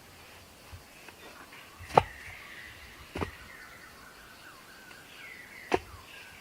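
Small birds chirping faintly, with three sharp knocks or taps over them; the loudest knock comes about two seconds in.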